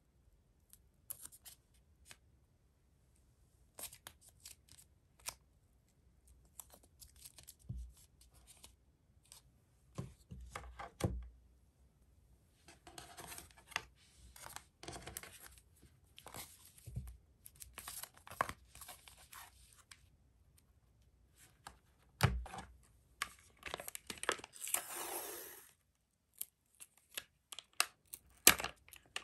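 Hands working with white paper tape and thin cardboard sheets: tape peeled, torn and pressed onto cardboard corners, with small taps and slides of cardboard on a table. A longer tearing sound comes about three-quarters of the way through.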